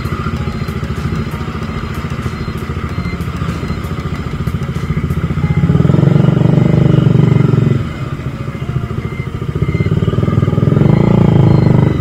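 Bajaj Dominar 400's single-cylinder engine running under way, then pulling hard and loud twice, from about six seconds in and again from about nine seconds in. Each pull ends abruptly.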